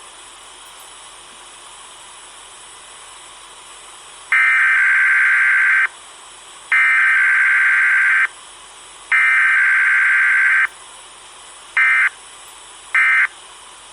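Emergency Alert System digital data bursts from a broadcast: three header bursts of about a second and a half each, a second apart, then three short end-of-message bursts near the end, the pattern of a Required Weekly Test. A steady hiss runs underneath.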